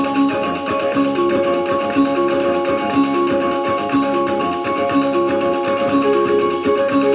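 Kulintangan gong-chime music: small tuned gongs struck in a quick, repeating melody over steady ringing tones, with a strong accent about once a second.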